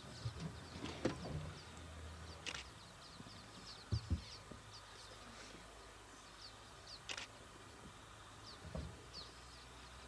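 Quiet bush ambience with small birds chirping repeatedly in short high notes, a few soft clicks, and a low thump about four seconds in.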